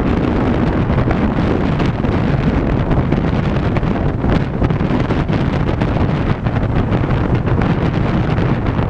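Wind rushing over a car-mounted GoPro's microphone at highway speed, a steady heavy rumble mixed with tyre and road noise.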